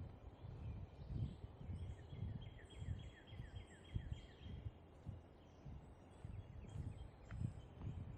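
Birds chirping, with one bird giving a fast run of repeated falling notes for about two seconds, starting about two seconds in, over a low irregular rumble of thumps.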